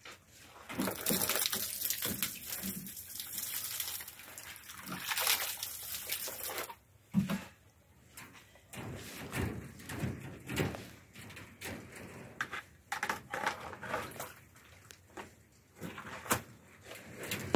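Water running or pouring steadily for several seconds, with a short break in the middle, then stopping abruptly. After it come scattered light knocks and rustles.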